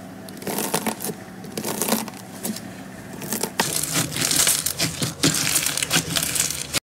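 Crunchy slime crackling as a blade presses through it, then as both hands push down and crush it flat. The crackle thickens and grows louder about three and a half seconds in, and cuts off suddenly near the end.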